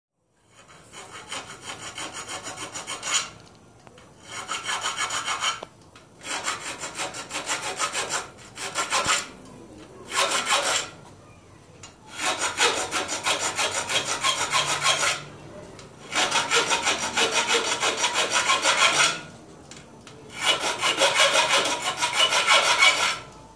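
Hand file rasping across the teeth of a Shimano SLX bicycle chainring in seven runs of quick back-and-forth strokes, each run lasting one to three seconds with short pauses between. The teeth are being filed back into shape to stop the chain skipping.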